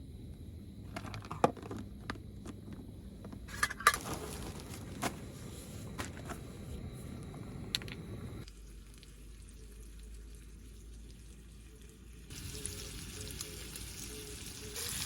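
Food sizzling in a pan on a camp stove, with scattered sharp clicks and knocks of utensils in the first half.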